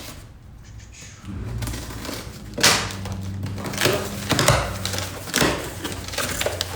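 A shipping package being cut and torn open, with several sharp ripping and scraping strokes. A low steady hum sets in about a second in.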